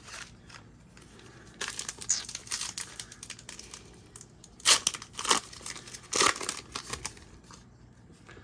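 Plastic wrapper of a trading card pack crinkling and being torn open, with a few sharp, loud rips about halfway through.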